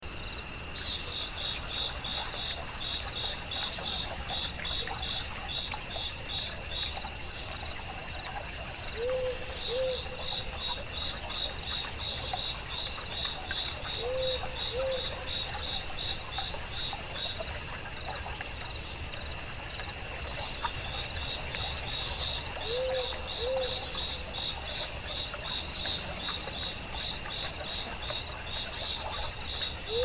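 Crickets chirping in long, even trains of rapid pulses over a continuous high insect trill. Every several seconds a low two-note call sounds, three times in all.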